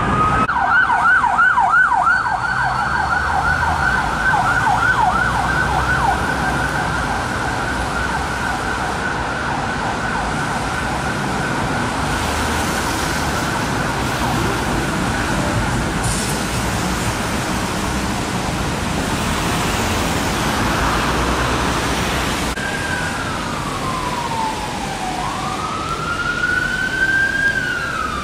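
Emergency vehicle electronic sirens. First a fast yelp, about three or four rising-and-falling sweeps a second, that fades away within several seconds, then traffic noise. Near the end a slow wail comes in, each sweep falling or rising over about two seconds.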